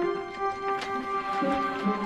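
Orchestral background music: held notes with light, sparkling accents.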